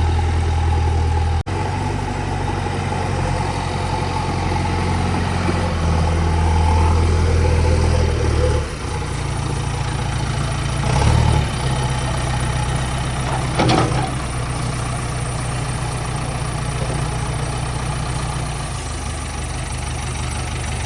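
Heavy diesel engine running steadily. It briefly cuts out about a second and a half in, its note changes about eight seconds in, and there are short louder surges around eleven and fourteen seconds.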